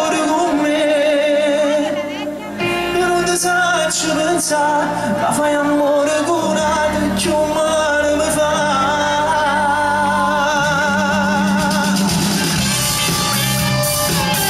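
Live Neapolitan pop song: a male lead voice singing with wide vibrato over a band of keyboards, electric guitar and bass, the band carrying on alone near the end.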